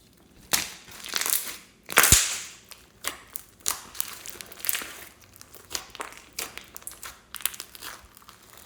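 Slime being pressed and squeezed by hand, making an irregular run of short crackles and pops. The loudest comes about two seconds in.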